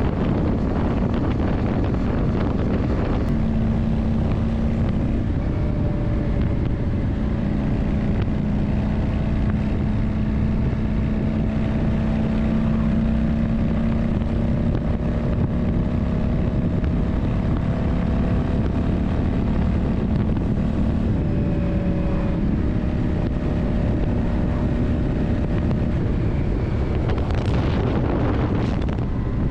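Yamaha Drag Star 400's air-cooled V-twin engine running steadily, its pitch shifting in steps a few times, with wind noise on the microphone. There is a brief rising sweep near the end.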